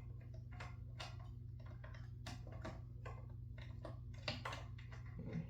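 Irregular light clicks and ticks, a few a second, from a screwdriver working the screws of a ceiling fan's blade bracket, over a steady low hum.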